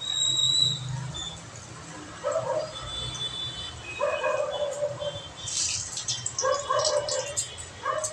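A dog barking and yelping four times, in short calls spaced a second or two apart. A run of sharp clicks sounds in the second half.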